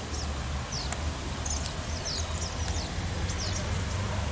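Small birds chirping, a string of short, high, falling chirps, over a steady low rumble.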